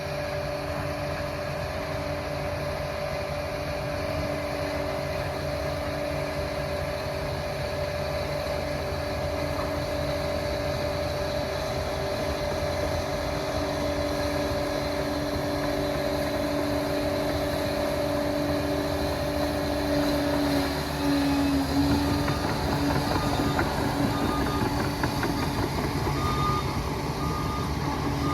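Liebherr PR 746 crawler dozer's diesel engine and drive running steadily with a whine, the pitch shifting about three-quarters of the way through. Near the end its reversing alarm starts beeping, about once a second, as the dozer backs up.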